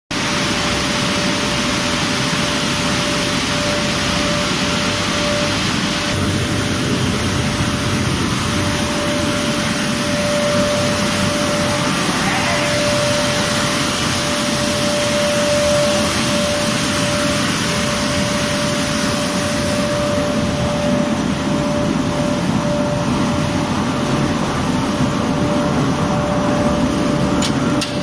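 Flour milling machinery and its air system running: a loud, steady mechanical din with air rushing, and a constant whining tone through it.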